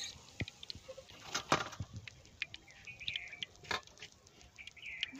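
Irregular light clicks and ticks, with two louder knocks about a second and a half in and near the four-second mark, and a few short high chirps.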